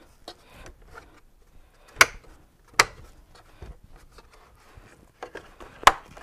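Plastic push clips snapping into place as a plastic bezel frame is pressed onto a 3rd gen Toyota Tacoma grille: three sharp clicks, two close together about two seconds in and one near the end, with light plastic rubbing and ticking between.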